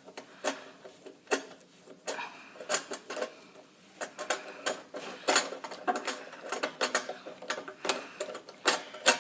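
Irregular sharp metallic clicks and clinks of a hand wrench working at stubborn lock nuts.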